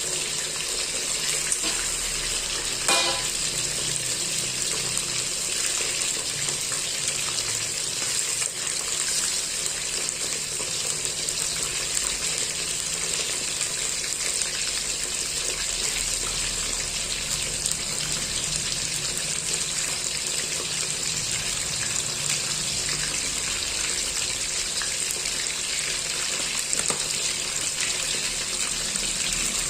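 Chicken pieces frying in a little oil in a pan: a steady sizzle, with one short knock about three seconds in.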